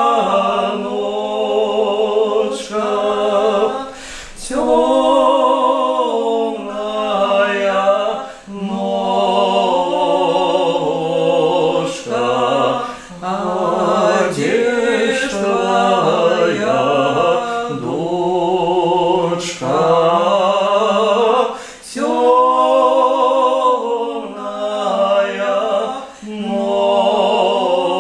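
A man and a woman singing a song together without accompaniment, in long wavering held phrases broken by short pauses for breath.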